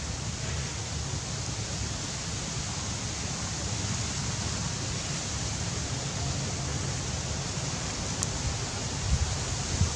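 Outdoor wind noise: a steady rushing hiss with an unsteady low rumble on the microphone, and a few low bumps near the end.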